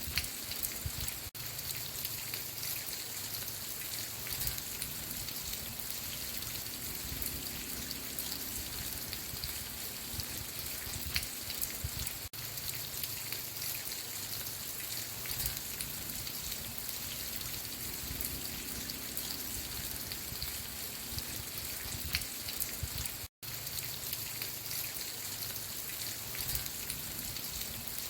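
Steady rain falling, an even hiss with scattered drop ticks. The sound cuts out completely for a split second about three-quarters of the way through.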